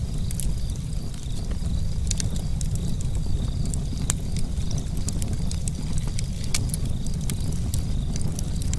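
Outdoor nature ambience: a steady low rumble with many faint, sharp crackles scattered through it and a faint, high chirp that repeats at an even pace.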